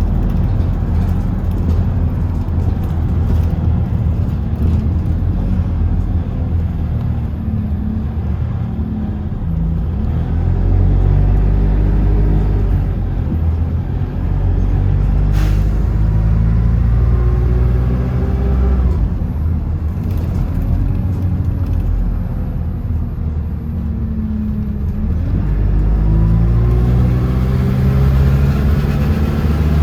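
Bus engine and drivetrain under way, the engine pitch climbing and dropping several times as it pulls away and shifts through gears, with a single sharp knock about halfway through.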